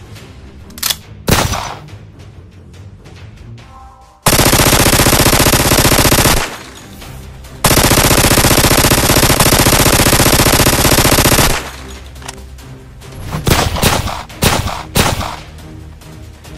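Gunfire sound effects over background music: two single shots, then two long bursts of rapid automatic fire, the second about four seconds long, then a few more single shots near the end.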